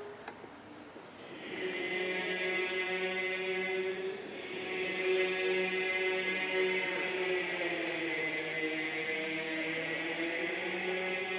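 Buddhist monks chanting a sutra together, long held notes that glide slowly up and down in pitch. The chant breaks off at the start, takes up again about a second and a half in, and pauses briefly for breath around four seconds.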